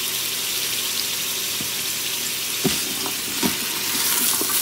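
Diced onions, carrots and potatoes sizzling steadily in olive oil in an Instant Pot's stainless inner pot on high sauté. A few light knocks come about two and a half and three and a half seconds in.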